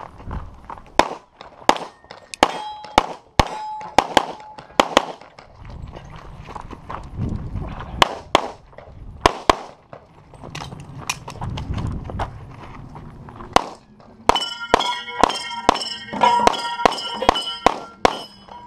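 Competition pistol fired in quick strings of shots, with short gaps between strings. Steel targets ring after hits, most densely in the last few seconds.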